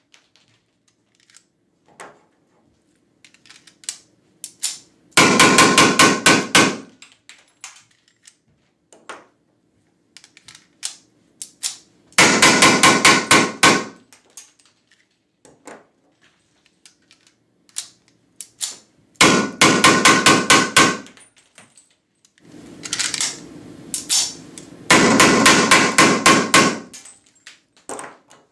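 Weihrauch HW94 blank-firing pistol shooting blank cartridges in rapid strings with its muzzle in a foil-covered box. Five dense strings of shots last about a second and a half to two seconds each, with scattered lighter single clicks between them.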